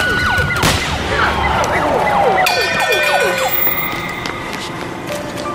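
An emergency vehicle siren yelping in rapid falling sweeps, with a single heavy thud less than a second in. The siren then slides down in pitch and fades as steady held tones take over about halfway.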